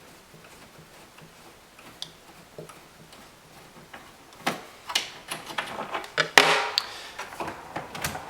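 Clicks and scrapes of a flathead screwdriver being handled and worked on a cabinet screw, faint at first and busier from about halfway, with a longer scrape near the end.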